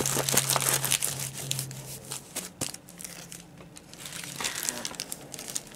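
Crinkling of thin plastic wrapping as a rolled diamond painting canvas is handled, dense at first, easing off in the middle, then picking up again near the end.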